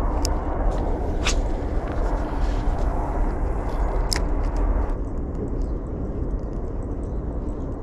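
A steady low rumble and hiss of outdoor noise, easing a little about five seconds in, with a few sharp clicks.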